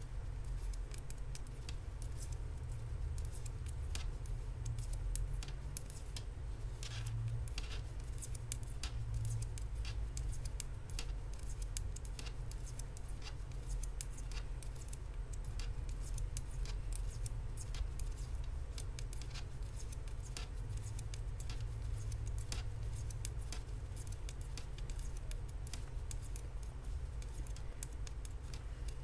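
Metal knitting needles clicking and tapping irregularly as stitches are knitted across a row by hand, over a low steady rumble.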